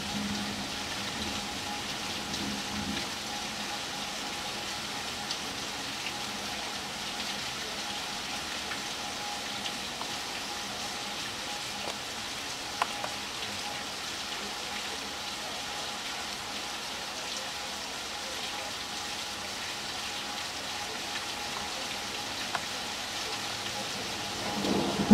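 Steady rain falling in a rainstorm, an even hiss throughout, with a couple of sharp drip clicks about halfway through.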